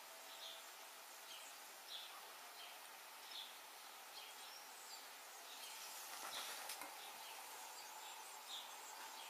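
Faint steady hiss with soft, short high-pitched chirps repeating about once or twice a second, and a brief noisy patch a little past halfway.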